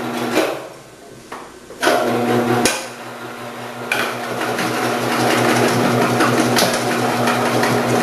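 Omcan HLC 300 vegetable processor: a few handling knocks, then its motor starts about two seconds in with a steady hum. From about four seconds in, cucumbers fed down the chute are cut by the spinning 8 mm slicing disc, adding a dense noise of slicing over the hum.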